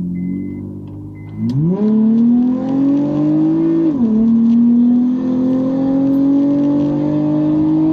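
Honda J-series V6 fitted with a J37 intake manifold, P2R ported runners and a throttle-body spacer, running cold. It goes from idle to two held revs, the pitch creeping upward during each, with a brief dip between them about four seconds in and a drop back near the end. A car's repeating warning chime beeps at the start.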